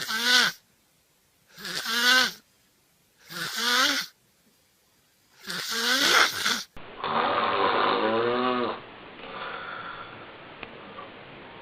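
Loud snoring in short, pitched breaths about every second and a half, each sliding down in pitch. About seven seconds in, a cut to another snorer: one longer pitched snore, then quieter breathing.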